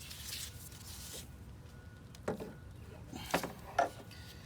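A faint rustle, then a few sharp clicks and knocks of hand tools and metal parts, about two seconds in and twice more near the end, as the low-pressure power steering hose is worked off the pump.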